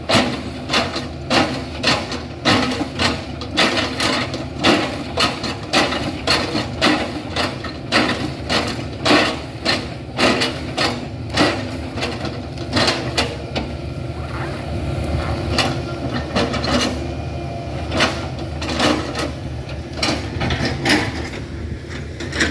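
Hitachi excavator chipping a felled oil palm trunk with a knife attachment on its arm: a fast run of sharp chopping strikes, about two a second, over the steady diesel engine. After about thirteen seconds the strikes thin out to a few irregular ones under the engine.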